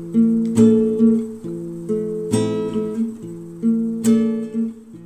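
Background music: acoustic guitar playing chords, with a plucked stroke about every half second, each ringing on.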